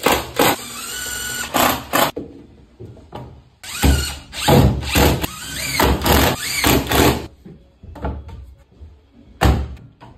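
Festool TDI 18 cordless impact driver driving small 3.5 mm screws into board, in several bursts of hammering with a motor whine that rises and falls: a couple of short bursts at the start, a longer run of bursts in the middle, and one last short burst near the end.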